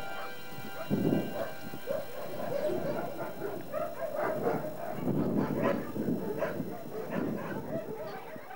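Many dogs barking and yelping at once in a dense, overlapping chorus, growing gradually fainter toward the end.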